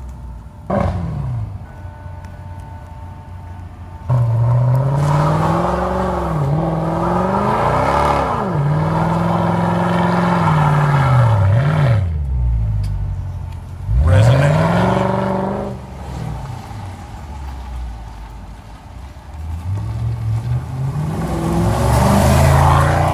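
Mercedes-Benz CL63 AMG V8 with its exhaust resonators deleted, revving hard while the car spins its rear tyres in a burnout, the engine pitch rising and falling. There is a sudden sharp rev about fourteen seconds in, and near the end the revs build again as the car comes close past.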